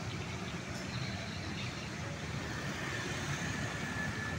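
Street traffic on a roundabout: motorbikes passing in a steady low rumble of road noise, with a faint high whine joining about halfway through.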